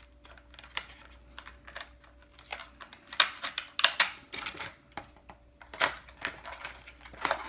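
Clear plastic blister-pack tray crackling and clicking under the fingers as a toy figure is worked loose from it: irregular small clicks, with a few louder snaps about three to four seconds in and again near the end.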